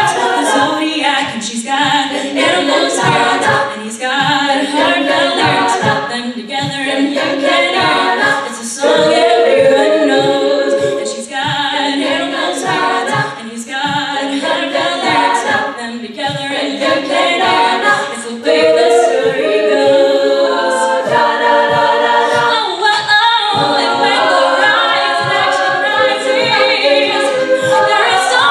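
A cappella group of mostly women's voices singing a pop song in close harmony, a lead voice over the group's backing chords, with a beatboxed vocal-percussion beat clicking steadily underneath.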